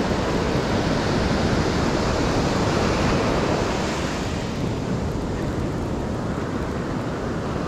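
Ocean surf breaking and washing up a beach in a steady rush of foam, with wind on the microphone.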